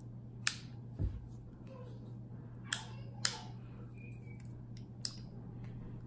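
Handheld crimp tool clicking as its handles are squeezed to crimp an RJ45 connector onto a network cable: a few short, sharp clicks at uneven intervals, with a soft thump about a second in.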